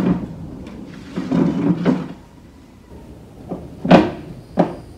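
Wire hanger of a hanging plant pot being hooked onto a porch ceiling hook. A rough scraping comes about a second in, then three sharp clicks and knocks near the end, the second one loudest.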